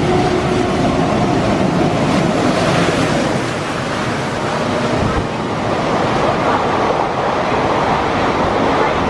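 Passenger train passing close by at speed: a steady, loud rush of wheel and air noise.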